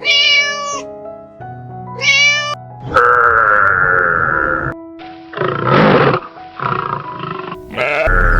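Background music with a string of separate animal calls over it. Two short, high calls come in the first couple of seconds, then a long, loud call about three seconds in, and a rougher, noisier call about six seconds in.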